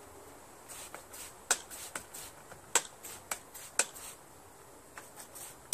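Hand trigger spray bottle squirting onto the bead of a 6-inch riding-mower tyre to check for a slow leak: about eight short, sharp squirts at uneven intervals.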